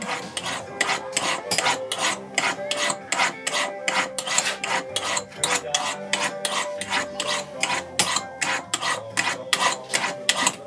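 A cobbler's hand rasp scraping a boot in quick repeated strokes, about three a second.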